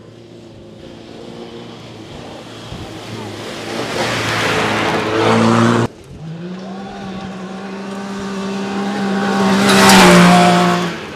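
Cross-country rally cars at full throttle. One car approaches, growing louder, and the sound cuts off abruptly about six seconds in. A second car then approaches with a steady engine note and passes, loudest near the end.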